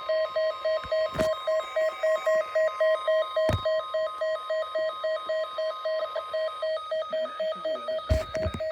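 A weather radio's alert alarm beeping fast and evenly, about four to five beeps a second, over the steady NOAA Weather Radio warning alarm tone, which stops about two-thirds of the way through; the alarm marks a new warning about to be broadcast. A few sharp clicks break in, one near the end.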